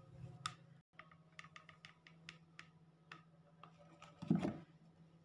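Hands handling velvet fabric and a book: scattered small clicks and soft rustles, with a short louder bump about four seconds in, over a faint steady low hum.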